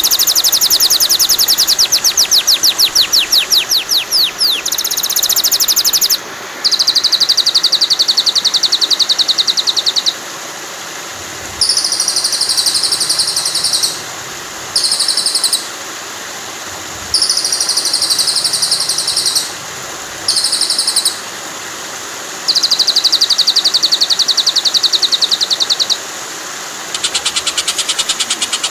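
Songbird song edited for a murai batu training track: very fast trills of high, repeated notes in blocks of one to four seconds with short breaks, the first block made of quick downward-sweeping notes. Steady flowing water runs underneath.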